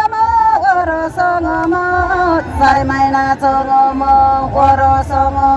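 A woman singing a Nepali folk song in a drawn-out melody of long held notes that slide between pitches, as in a dohori song exchange.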